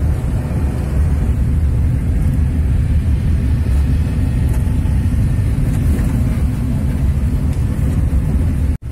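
Steady engine and road rumble heard from inside a moving vehicle's cabin while driving. The sound drops out for an instant near the end.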